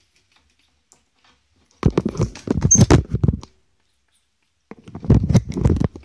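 African grey parrot's beak and feet scraping and tapping at the phone it is trying to pull off the wall, right against the microphone: two bursts of rapid scratching, one about two seconds in and another near the end.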